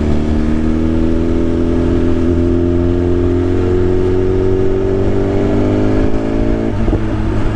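BMW S1000RR's inline-four engine pulling steadily under way, its pitch rising slowly as the bike gathers speed, with a brief break in the note near the end.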